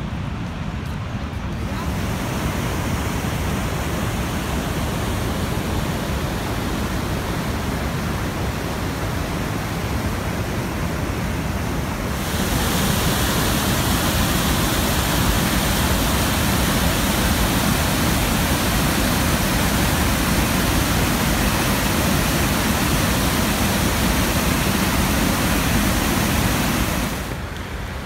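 Rapids of the Niagara River rushing over low rock ledges: a steady wash of white water, louder from about halfway through and dropping back near the end.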